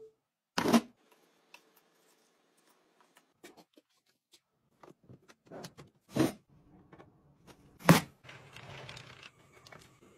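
Close handling sounds of household objects: a string of sharp clicks and knocks, three of them loud, with a short rustling scrape just after the last loud one.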